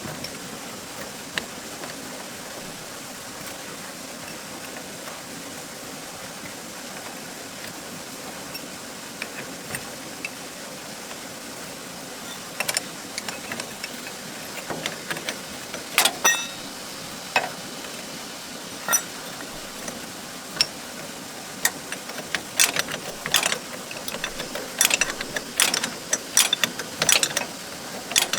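Metal hand tools clicking and clinking against nuts and bolts on a farm tractor during repair work. Scattered sharp clicks over a steady low hiss, only a few at first, then coming often in the last several seconds.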